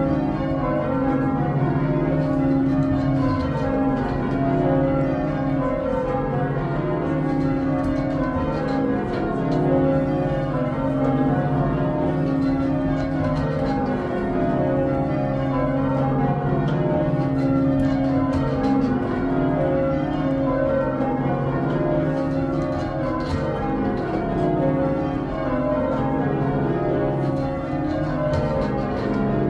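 Church bells being change-rung, striking one after another in quick, repeated falling runs. The tenor bell is struck by a newly fitted clapper that is still bedding in.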